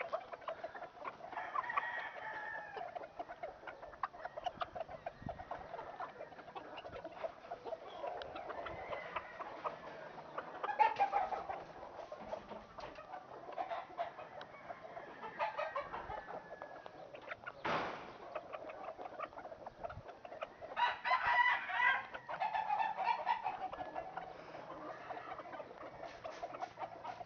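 Roundhead gamecocks clucking and calling on their tethers, with a louder rooster crow about three-quarters of the way through. There is a single sharp click a little past the middle.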